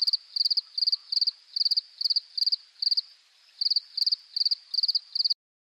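A cricket chirping in an even rhythm, about two and a half high-pitched chirps a second, each chirp a quick trill of a few pulses, with a brief pause about three seconds in. It cuts off abruptly near the end.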